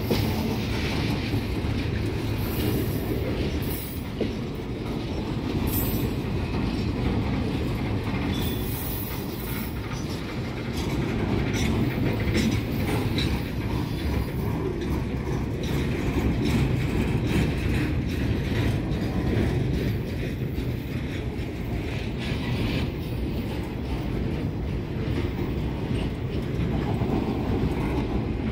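Rail train of flatcars loaded with long welded rail rolling past at close range: a steady rumble and clatter of wheels on the track, with a few brief high-pitched streaks in the first ten seconds or so.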